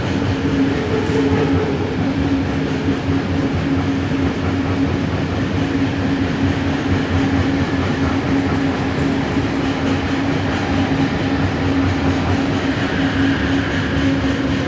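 Metro train running, heard from inside the carriage: a steady rumble of the wheels on the track under a constant motor hum.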